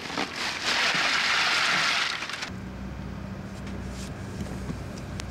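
Ice cubes dumped from a plastic bag into a boat's live tank, a loud crunching rattle for about two seconds that cuts off abruptly. After that a steady low hum with a couple of faint clicks.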